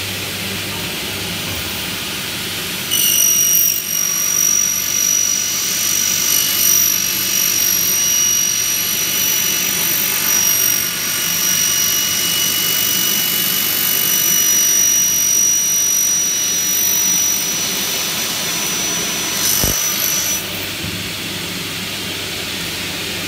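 Double-head aluminium cutting saw's motor running with the blade spinning; about three seconds in, the blade cuts through an aluminium profile with a loud, high, steady whine of several tones, lasting until about twenty seconds in, after which the motor runs on.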